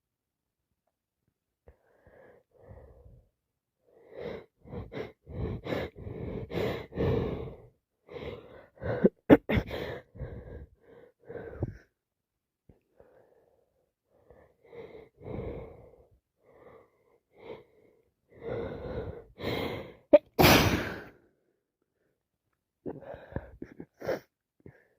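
A person sneezing over and over in clusters of short, sudden sneezes, from a cold and allergies. The loudest sneeze comes about twenty seconds in.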